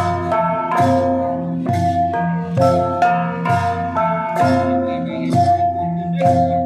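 Bahnar women's cồng chiêng gong ensemble: each player strikes one hand-held gong with a wooden beater, and the gongs' ringing notes of different pitches overlap in a continuous, repeating pattern of strikes.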